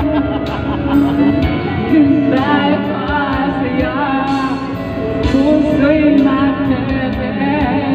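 A man singing into a handheld microphone over backing music, with long held notes that waver and bend in pitch.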